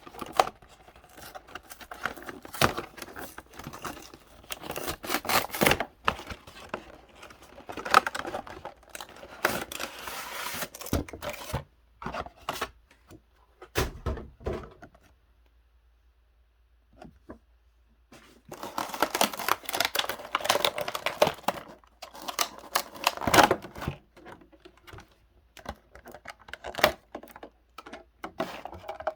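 Hands opening a Pokémon trading card box: wrapping and cardboard crinkling and tearing, mixed with quick taps and clicks. It comes in two busy spells with a short lull in between.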